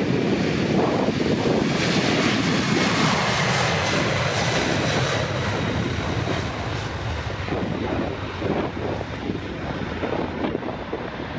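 Jet engines of a Boeing VC-25, a four-engine 747-200, running loud as the aircraft passes, with a thin turbine whine that falls slightly in pitch around the middle; the sound eases a little in the second half.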